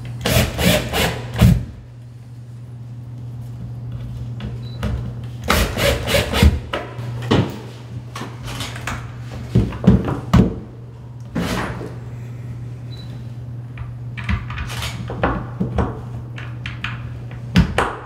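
A 12-volt cordless drill driving snap screw anchors into drywall, then screws through a plastic tube receiver into the anchors: a run of short grinding, crunching bursts a few seconds apart, over a steady low hum.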